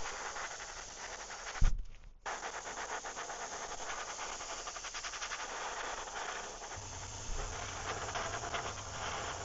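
Airbrush spraying white base coat with a steady hiss of air and paint. It breaks off briefly with a thump just under two seconds in, then sprays on. A low hum joins from about seven seconds.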